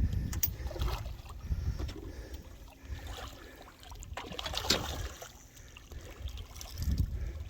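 Water splashing and trickling beside a small fishing boat, with louder splashes about four to five seconds in, over a low rumble.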